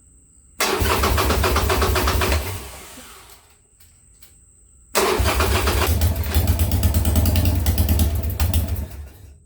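Harley-Davidson Sportster 45-degree V-twin being cranked over on its starter in two start attempts, a short one of about two seconds and a longer one of about four, each cut off suddenly and then dying away, without settling into an idle. This is the first start after a top-end rebuild with new cams, lifters and rings.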